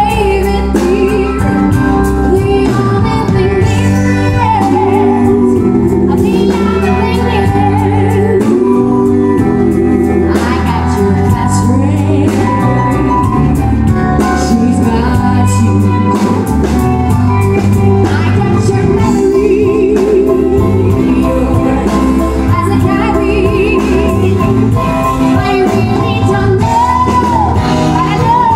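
Live music: a woman singing a song into a microphone over keyboard and band accompaniment.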